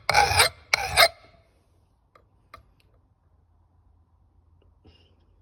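Two rasping strokes of a flat file across the edge of an old Kentish axe head in the first second, sharpening it, then a pause with only a few faint taps.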